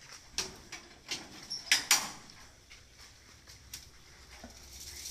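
A handful of sharp, separate knocks and bangs as a cow is pushed up a loading ramp into a truck: hooves striking the ramp and the truck bed.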